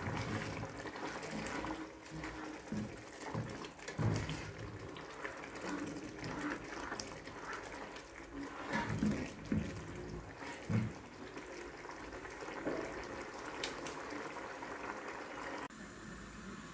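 Coconut-milk fish curry simmering in a pot, bubbling steadily, with a spatula stirring through it and knocking against the pot now and then.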